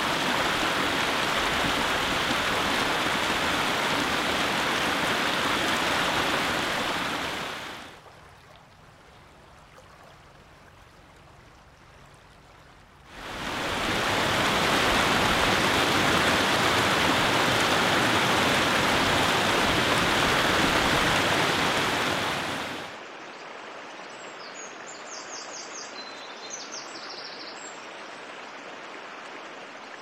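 Rushing water from waterfalls and a mountain creek, a loud, steady wash of falling water that drops to a faint hush for about five seconds early on, then returns. About three-quarters of the way in it gives way to a quieter creek flowing over rocks.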